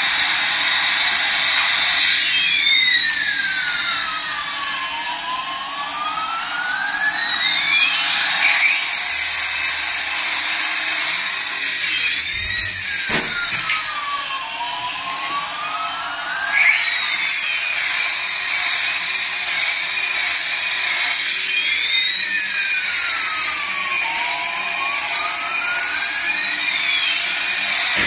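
Electronic sound effect from a battery-powered light-up toy: a siren-like tone swooping down and back up, repeating about every ten seconds, over a steady whirring hiss.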